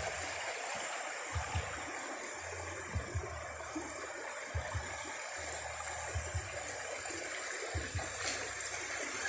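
Shallow creek running over gravel: a steady rush of water, with a few soft low thumps now and then.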